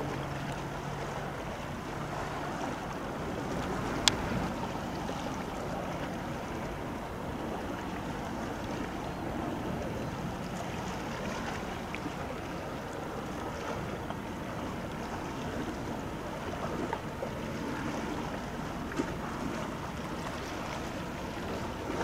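Steady wash of water and wind as a large Ro-Ro passenger ferry passes close by, its bow wave and wake breaking along the hull, with wind rumbling on the microphone. A low hum fades out in the first couple of seconds, and a single sharp click comes about four seconds in.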